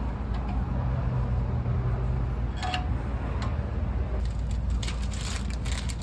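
Hands fitting a brake caliper's anti-rattle spring, with light metal clicks and taps, then a run of crinkling as a small plastic parts bag is handled near the end. A steady low hum runs underneath.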